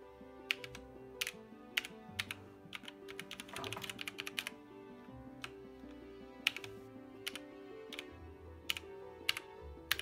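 Kailh Brown mechanical keyboard switches on a Zalman ZM-K900M keyboard clacking as keys are pressed one at a time, with a quick flurry of keystrokes about three and a half seconds in. Background music plays underneath.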